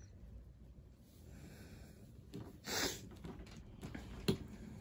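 Faint handling of a cardboard Funko Pop box as it is opened, with a few small clicks and one short, louder rush of noise a little before halfway.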